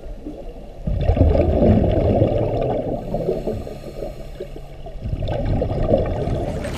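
Muffled water gurgling and sloshing, with all the high sound cut away, swelling twice: about a second in and again after about five seconds.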